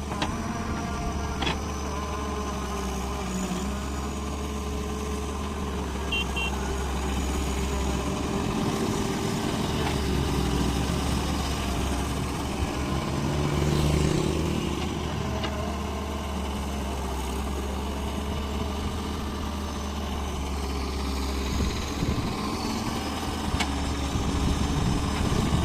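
Large Volvo excavator's diesel engine running steadily with a deep hum, with a few short clicks over it.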